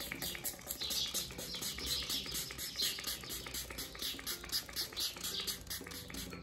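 Rapid, evenly spaced short hissing strokes, about six a second, from makeup being applied to the face, over soft background music.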